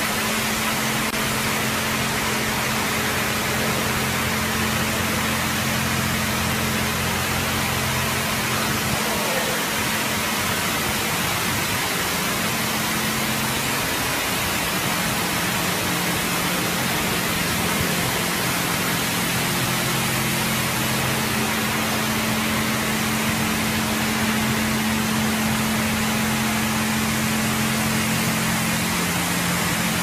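Automatic car wash machine running: a steady, loud hiss of spraying water with a low pump-motor hum underneath that shifts in pitch a few times.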